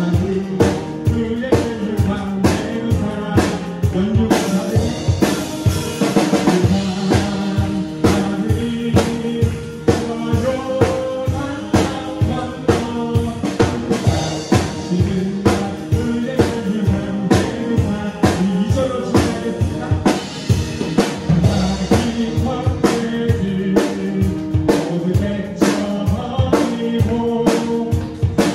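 A drum kit played live with kick, snare and cymbals, keeping a steady beat along to a recorded worship song with singing.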